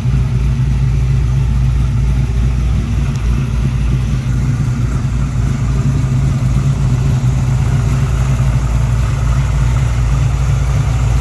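Blue Print Engines 400 cubic-inch small-block Chevy V8 crate engine idling steadily through a 3-inch Pypes exhaust.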